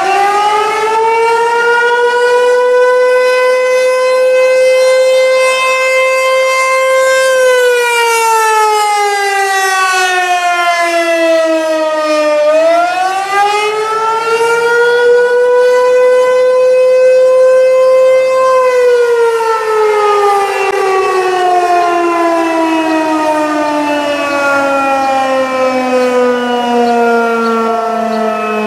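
Civil defense warning siren sounding a wail. It holds a high steady pitch, slides down and back up about halfway through, holds high again, then slowly winds down in pitch over the last third.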